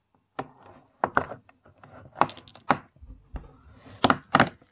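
Hands opening the day's door of a LEGO advent calendar and handling its contents: an irregular run of sharp clicks and rustles as cardboard and small plastic LEGO pieces are handled, the loudest clicks about two seconds in and near the end.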